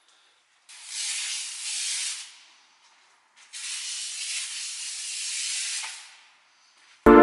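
Hand-pump garden sprayer, modified to shoot foam, spraying onto a car in two long hissing bursts, the second longer than the first. Music starts at the very end.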